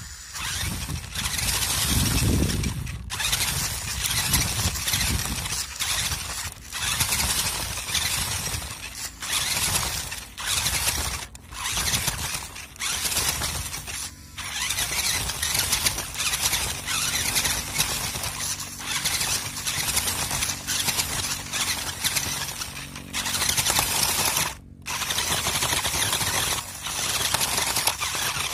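On-board sound of an off-road RC truck driving over rough dirt: its motor and gear train whine at full power, cutting out briefly a few times when the throttle is released, with the tyres scrabbling over the ground.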